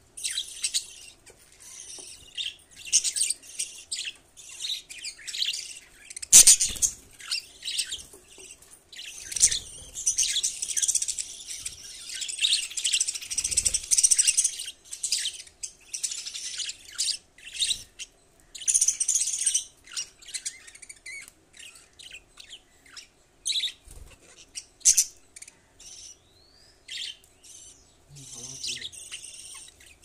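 Budgerigars chattering: a near-continuous run of short, high chirps and warbles, busiest in the middle and thinning toward the end, with a sharp knock about six seconds in.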